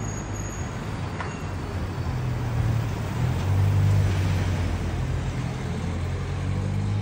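Low, steady rumble of road traffic with a vehicle engine running close by, swelling louder a couple of seconds in and easing off again.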